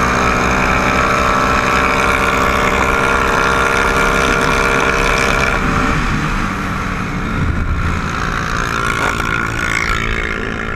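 Can-Am ATV engine pulling at steady high revs, then easing off about halfway through and running less evenly with small rises and falls.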